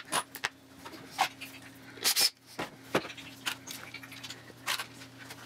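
Irregular light clicks and scrapes as steel nuts are turned finger-tight by hand onto 1/4-inch screws through the board, with a short rustle about two seconds in. A faint steady hum runs underneath.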